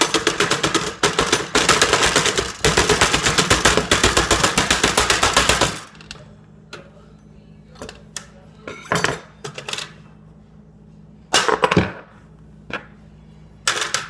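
A fast run of sharp knocks, several a second, as a hand bangs on a computer motherboard lying on a countertop. The run stops about six seconds in, leaving a few scattered clicks and handling noises.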